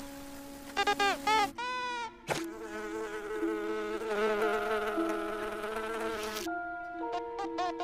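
Stylised cartoon wing buzz of a flying ladybird: a wavering pitched drone, preceded by a few short chirps and a sharp click. Near the end, light mallet-percussion music takes over.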